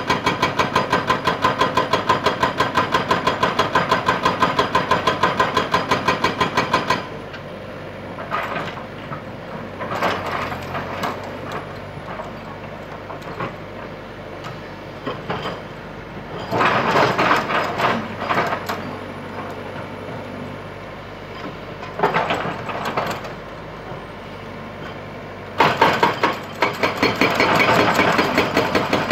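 Excavator-mounted hydraulic breaker hammering rock with rapid, even blows. It stops about a quarter of the way in, leaving the excavator's diesel engine running with a few short bursts of hammering, then starts hammering steadily again near the end.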